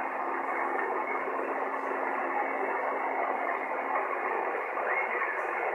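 Shortwave receiver in lower-sideband mode on 27.385 MHz giving steady, band-limited static hiss between weak transmissions, with a steady low heterodyne tone that stops just before the end.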